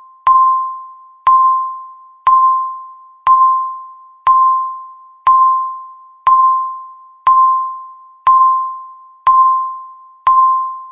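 Countdown timer beeps: a single electronic ping once every second, each struck sharply and fading away before the next, eleven in all. They tick off the final seconds of the countdown before zero.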